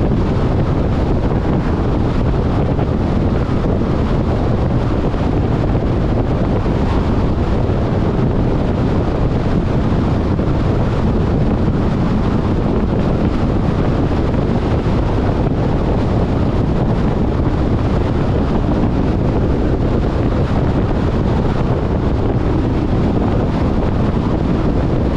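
Steady rush of wind and road noise from a car driving, with wind buffeting the microphone.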